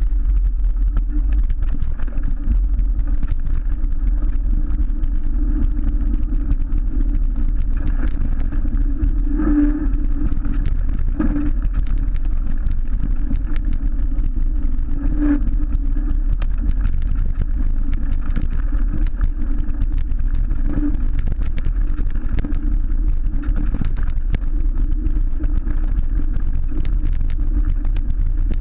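Mountain bike rolling fast downhill over a rough dirt trail, heard on a handlebar-mounted action camera: a steady, loud low rumble of wind and tyre noise, with scattered knocks and rattles as the bike hits bumps.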